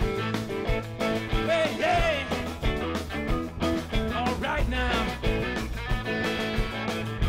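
Live rock band playing: electric guitars, bass and a drum kit keeping a steady beat, with a harmonica played into a handheld microphone carrying the lead in bent, wavering notes.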